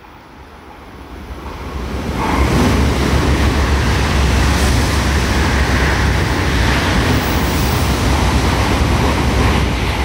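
N700-series Tokaido Shinkansen train passing through the station at speed without stopping: a rush of air and rolling noise that builds over about two seconds, holds loud and steady, and begins to fade as the last car goes by near the end.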